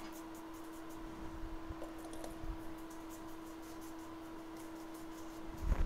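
A steady electrical hum with faint, scattered light ticks, as of a small brush or swab cleaning flux off a phone logic board. There is one soft knock near the end.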